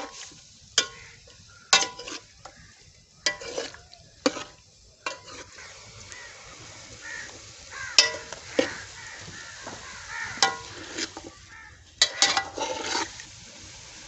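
A steel spoon stirring chicken pieces in an aluminium karahi, scraping and clanking against the pan at irregular intervals, with a quick cluster of knocks near the end. The chicken sizzles faintly underneath as it cooks in the hot pan.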